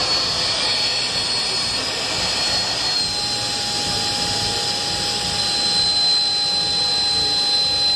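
Black Diamond JetForce avalanche airbag's electric jet fan running in reverse, sucking the air out of the 200-litre bag: a steady high whine over a rush of air. About three seconds in, a lower second tone joins and the high whine dips slightly. This is the automatic deflation at the end of the 3-minute inflation cycle.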